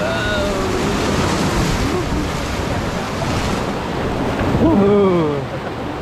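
Steady rush of whitewater on river rapids, with wind noise on the microphone.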